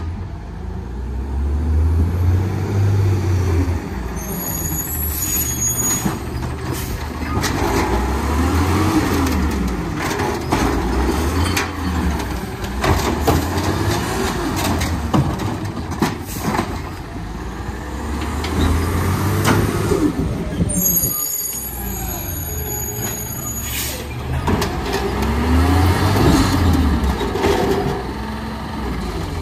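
CNG Peterbilt 320 garbage truck with an Amrep automated side loader, its engine revving up and down again and again to drive the arm's hydraulics as it picks up and dumps trash cans. The air brakes hiss twice, about 4 seconds in and again about 21 seconds in.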